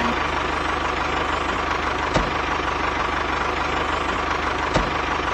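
Diesel tractor engine idling with a steady, fast, even chug, and two sharp clicks, about two seconds in and near the end.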